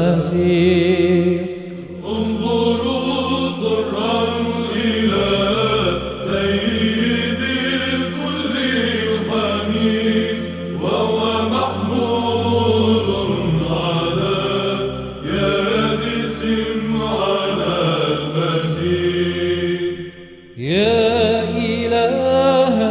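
Background music: a voice chanting a slow melodic hymn over a steady held low drone, with brief breaks between phrases about two seconds in and again near the end before a new phrase begins.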